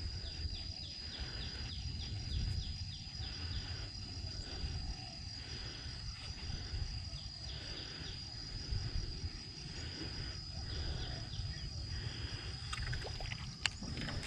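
Outdoor ambience over open water: a low wind rumble on the microphone under a steady high-pitched whine, with runs of quick falling chirps about four a second in the first few seconds and again near the middle.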